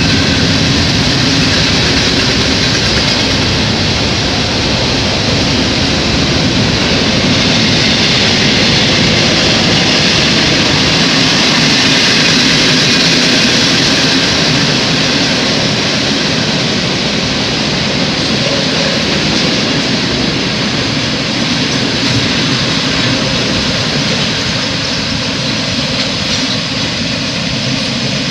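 CSX freight train rolling past at close range: a loud, steady rush of wheels on rail that eases slightly in the second half.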